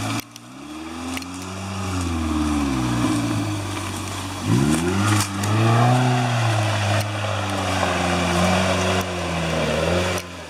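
Off-road vehicle's engine revving up and down again and again under changing throttle. It rises sharply about four and a half seconds in and runs louder from there.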